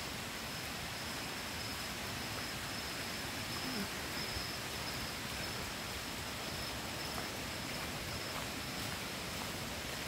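Rainforest insect chorus: a steady high-pitched drone over a dense hiss of insects, with a few faint footsteps on the dirt trail.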